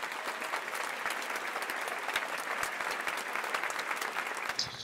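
Applause: a crowd clapping in a steady, even crackle that stops just before the end.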